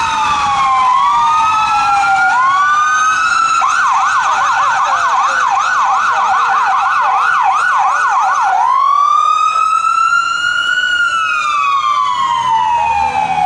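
Fire truck siren responding code 3: a slow rising and falling wail switches about a third of the way in to a fast yelp of roughly three sweeps a second, then returns to the slow wail. A truck's engine rumble comes up near the end.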